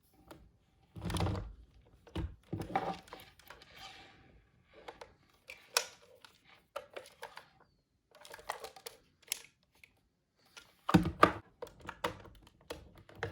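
Handling of a plastic toy alarm clock: irregular clicks, knocks and rustles, with a heavier thunk about a second in and a cluster of knocks around eleven seconds.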